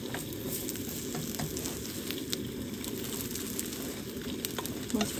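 Food sizzling in a frying pan: a steady sizzle with scattered small pops and crackles.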